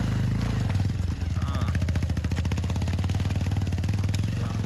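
Motorcycle engine running steadily at low revs, a low hum with rapid, even firing pulses, as the bike crawls along a slippery, iced-over road.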